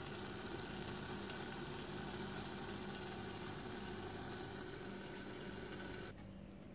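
Ground castor seed paste sizzling and bubbling in a pot, cooked down until its oil has separated out, over a steady low hum. The sizzle cuts off suddenly about six seconds in.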